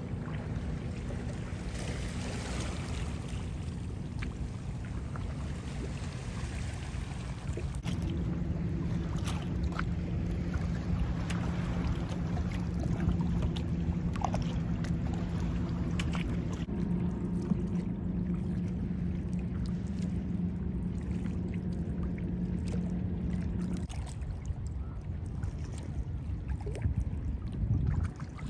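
Kayak on open water: paddle strokes and water splashing and lapping against the hull, with occasional small drips and knocks. A steady low hum joins in about a third of the way through and stops shortly before the end.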